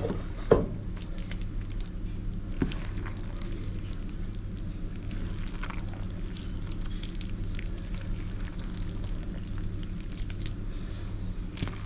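Wooden spoon stirring thick cheese sauce into cooked macaroni in a glass baking dish: soft squelching with small scrapes and clicks, and one sharp knock about half a second in, over a steady low hum.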